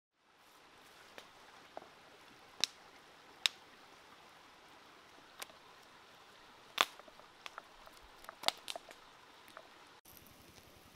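Hands kneading a wet chili marinade into raw pork ribs in a pan: scattered short wet smacks and squelches at irregular intervals, a few much sharper than the rest, over a faint steady hiss.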